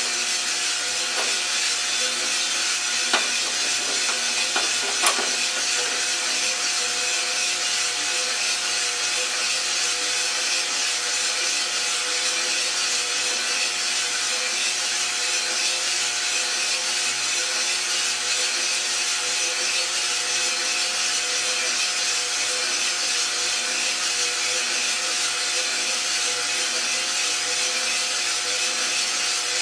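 Iroaster600 drum coffee roaster running with green beans tumbling in the drum, early in the roast: a steady whirring hiss with a motor hum, and three sharp clicks in the first five seconds.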